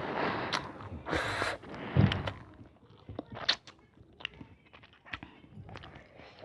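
Ramen noodles being slurped in two noisy drawn-in bursts, then a dull thump about two seconds in, followed by soft chewing and small clicks.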